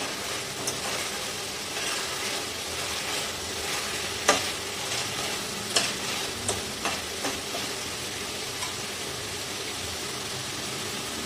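Spice masala with potatoes and tomato sizzling in oil in a kadai while a spatula stirs it. Sharp knocks of the spatula against the pan come in the first seven seconds or so, then only the steady sizzle. The masala is being fried until the oil separates.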